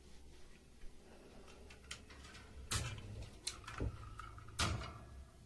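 Several sharp clicks and knocks a second or so apart, the loudest about two-thirds and four-fifths of the way through, over a low steady hum.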